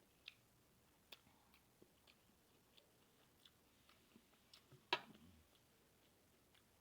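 Faint chewing of food: soft, scattered mouth clicks and wet smacks, with one sharper click about five seconds in.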